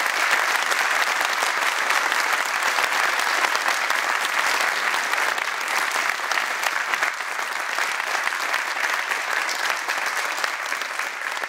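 Audience applauding, a dense steady clatter of many hands clapping that eases off slightly toward the end.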